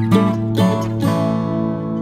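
Background music: acoustic guitar, plucked and strummed, with new notes struck about every half second.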